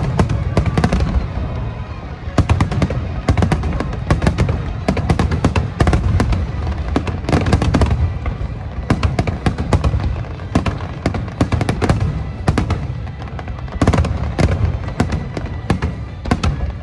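Aerial firework shells bursting in a dense barrage: deep booms and sharp cracks overlapping several times a second, with the show's music playing faintly underneath.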